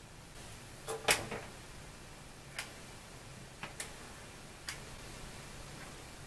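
A handful of small, sharp clicks and taps, about seven of them spread over several seconds, the loudest about a second in: hair accessories and styling products being handled and set down while a bun is put up.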